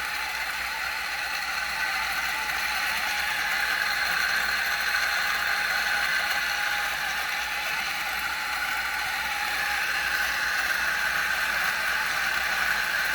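Option-O Lagom P64 flat-burr coffee grinder with 64mm SSP unimodal burrs grinding espresso beans at a low 350 RPM: a steady, even grinding hum with a gritty crackle of beans being milled.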